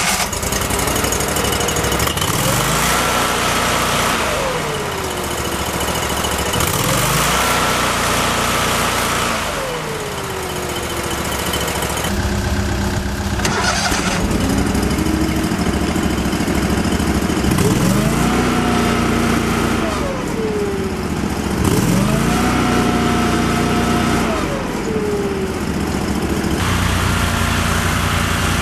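The engine of a 2011 Toro Dingo TX427 mini skid steer loader runs and is throttled up and back down about five times, each time rising in pitch, holding for a couple of seconds, then falling back to idle.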